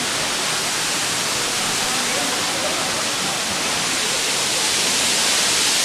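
Waterfall: the steady rushing hiss of falling water, with faint voices underneath.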